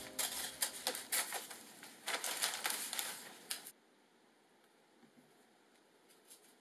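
Scissors snipping and paper rustling as a sheet of textured paper is trimmed around a book board: quick, irregular crisp clicks and crinkles that stop abruptly a little over halfway through, leaving near silence with a few faint ticks.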